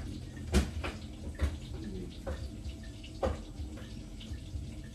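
Tap water running into a sink, with a handful of sharp knocks and clatters, the loudest about half a second in.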